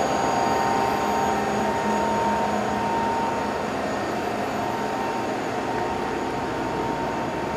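Steady machine hum with a faint steady whine from a powered-up 1998 Hitachi Seiki HT23J CNC lathe standing at idle, its Parker hydraulic unit running.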